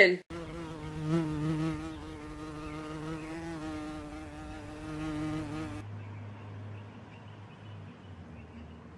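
A flying insect buzzing: a steady hum that wavers slightly in pitch. About six seconds in it gives way to a fainter, lower hum.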